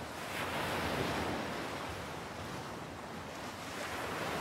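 Rushing wind and sea noise, with no clear tone or rhythm, swelling slightly twice.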